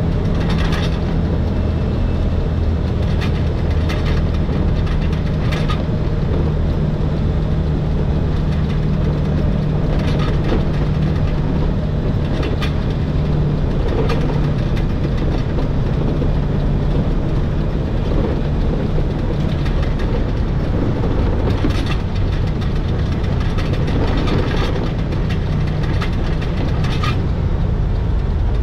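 Electric rack train of the Schynige Platte Railway running downhill, heard from the driver's cab. A steady low drone runs throughout, with short clicks and knocks at irregular intervals.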